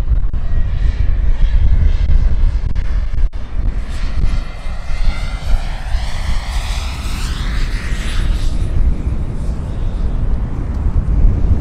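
Large scale model Gazelle helicopter in flight, its Jakadofsky Pro 6000 model turbine whining over a heavy low rumble of rotor and wind. About halfway through, the whine sweeps up and then down in pitch as the model makes a low pass.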